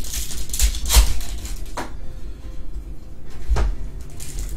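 Trading card packs and cards handled by hand on a table: a handful of short rustles, scrapes and taps, the loudest about a second in.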